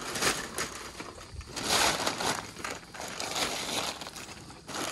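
Heavy brown kraft packing paper crinkling and rustling as it is pulled back off a rolled inflatable paddleboard, loudest about two seconds in.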